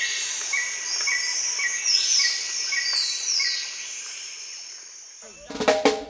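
Forest ambience: a steady high insect drone, a bird note repeated about twice a second, and a few falling high notes. Music with drums comes in about five and a half seconds in.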